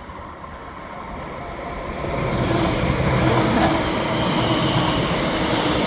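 Greater Anglia electric multiple unit approaching and passing on the line, its rumble and wheel-on-rail noise building about two seconds in and then holding steady and loud.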